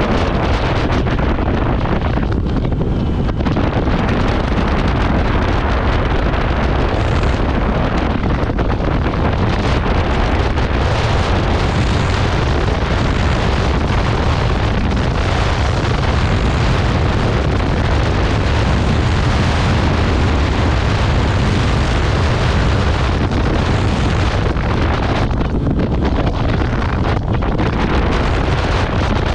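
Steady, heavy wind rush buffeting the microphone of a Honda ADV 150 scooter riding along at speed.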